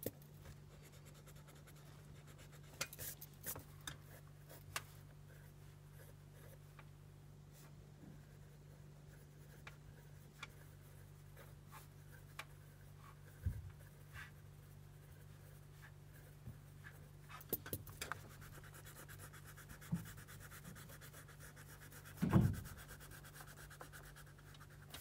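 Graphite pencil scratching and rubbing on sketchbook paper in short, scattered strokes, over a steady low hum. Near the end comes a single low thump.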